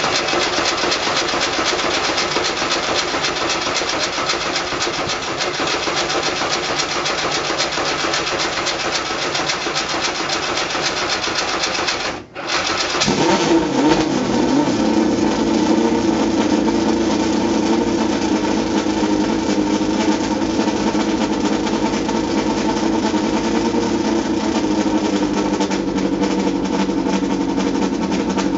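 Small open-wheel race car's engine running loud and rough just after starting. About twelve seconds in it cuts out for a moment, then picks up again and runs on steadily with a lower, more even tone.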